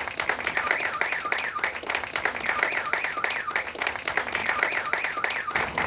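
A small crowd applauding, with steady, dense clapping.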